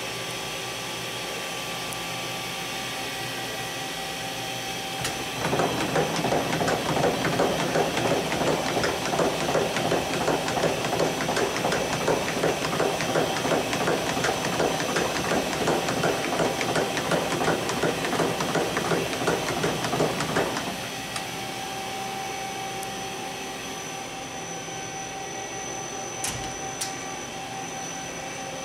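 Tool changer chain magazine of a KIWA KNH-426X horizontal machining center indexing: about five seconds in, a rapid, even clatter of some three to four clicks a second starts, runs for about fifteen seconds, then stops. Under it runs the machine's steady hum, and near the end there are a couple of sharp clicks.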